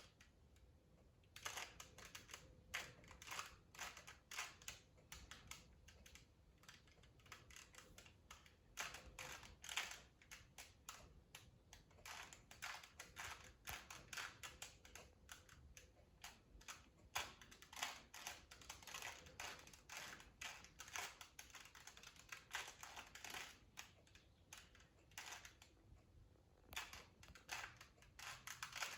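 2x2 Rubik's Cube being turned by hand while it is being solved: quiet, rapid clicking and clacking of the plastic layers in quick runs, with short pauses near the start and a few seconds before the end.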